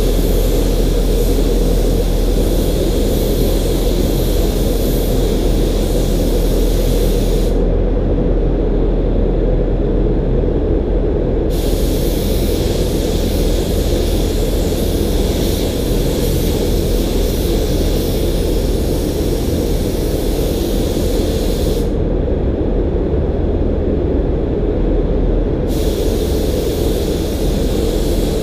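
A DeVilbiss gravity-feed spray gun hissing as it sprays primer, in bursts as the trigger is pulled and released; the hiss stops for a few seconds twice. Underneath runs a steady low rumble.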